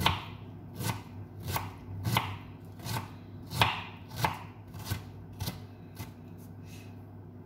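A kitchen knife chopping red onion on a wooden cutting board: sharp knocks about one and a half a second, thinning out near the end.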